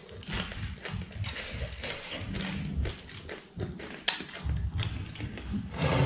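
A person chewing close to the microphone: irregular crunches and clicks with wet mouth sounds and soft thumps, and one sharp click about four seconds in.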